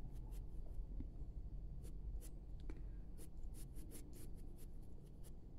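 Dark grey colored pencil scratching lightly on paper in quick, irregular shading strokes.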